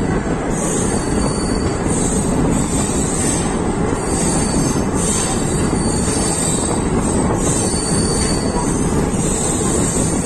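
Steady rumble of a passenger train's ICF coaches rolling along the track past a station platform, heard from an open coach doorway.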